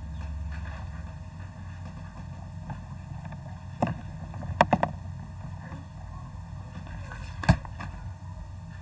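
Steady low hum and background noise from a computer setup's microphone, with a few sharp clicks or knocks: one a little under four seconds in, two close together shortly after, and one near the end.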